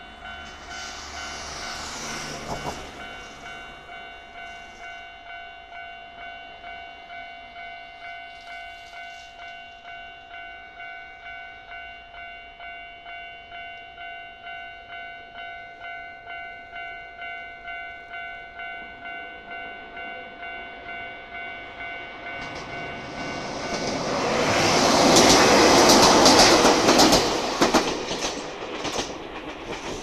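Level-crossing warning bell ringing with an even, repeating electronic ding while a car passes over the crossing in the first few seconds. About twenty-three seconds in, electric train set 1001F rolls over the crossing: a loud rising rumble with wheels clacking over the rail joints, which eases off near the end.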